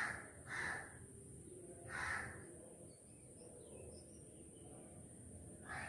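Faint crow cawing: two harsh caws in quick succession at the start, another about two seconds in, and one more near the end.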